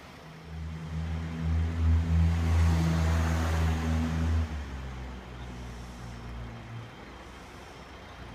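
Diesel engine of a rail vehicle throttling up for shunting, held loud for about three seconds. It drops back sharply about four and a half seconds in and settles to a fading low hum.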